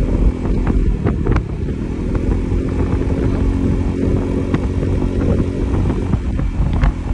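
Motorcycle engine running at a steady cruise of about 50 km/h, its pitch holding level, with wind rumbling on the microphone.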